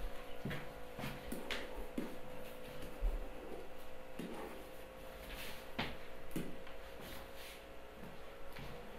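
Scattered soft clicks and taps from a stylus and mouse while letters are handwritten and tools are picked on a computer whiteboard, over a steady faint hum.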